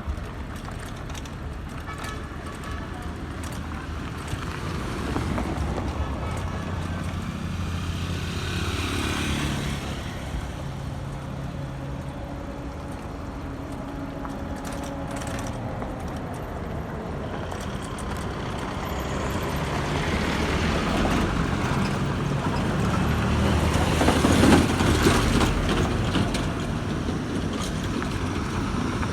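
Road traffic: engines and tyres of passing vehicles, swelling as one goes by about nine seconds in and again, louder, around twenty-four seconds in.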